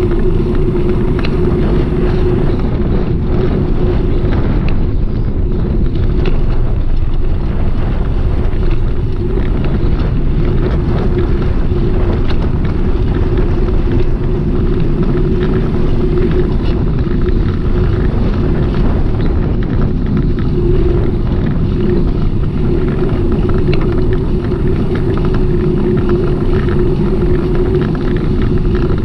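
Steady rolling and wind noise of a bicycle ride on city streets, with a constant hum and small rattles and clicks from road bumps.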